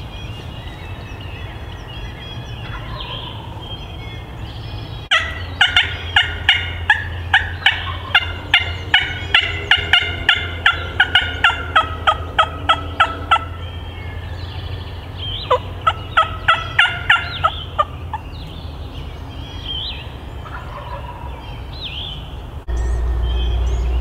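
Turkey yelping: a long run of loud, quick, evenly spaced yelps about three a second, then after a short pause a run of about six more. Faint songbird chirps sound between the runs, and a low rumble of wind or handling comes in near the end.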